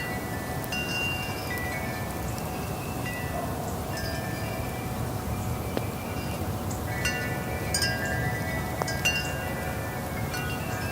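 Metal wind chimes ringing as the wind sways them, clear tones struck at irregular intervals, busiest about seven to nine seconds in. Behind them runs a steady low rush of wind.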